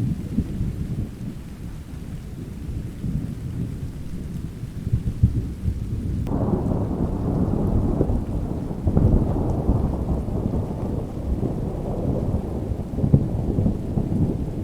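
Thunder rumbling low and continuously with rain; about six seconds in a louder peal sets in abruptly and rolls on.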